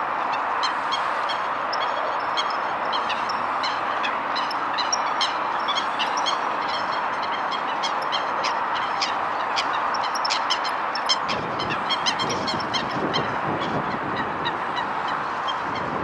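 A flock of geese honking continuously, with many short sharp calls over the top. Some lower-pitched sound joins in about two-thirds of the way through.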